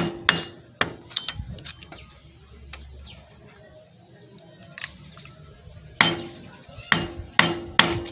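Hammer blows on a screwdriver bending the tab of the clutch hub nut's lock washer on a Yamaha YBR Factor 125 engine: sharp metal strikes, each with a short ring. There is a quick series of strikes at the start, a few seconds with only light taps, then another series near the end.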